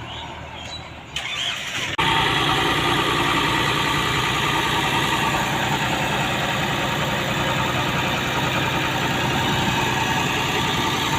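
Diesel engine of a JCB 3DX backhoe loader running steadily under work. It comes in abruptly about two seconds in, after a quieter stretch with a few clicks.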